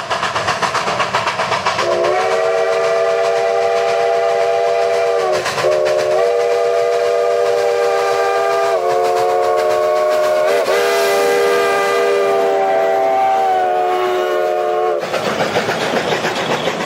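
A train passing and sounding its multi-note chime in long blasts over the steady noise of the moving train. The chime breaks briefly about five and eleven seconds in.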